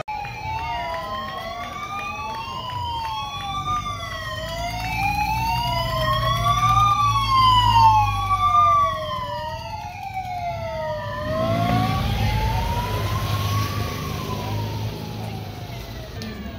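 Police motorcycle siren wailing, slowly rising and falling, with a second wail overlapping out of step until about two-thirds of the way through; then a single wail goes on and fades near the end. A motor engine rumbles underneath.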